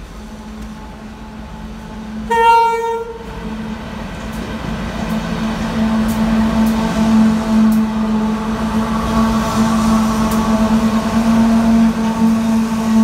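Diesel freight locomotives hauling hopper wagons through a station: one short horn blast about two seconds in, the loudest sound, then the locomotives' steady engine drone grows louder as they pass close by.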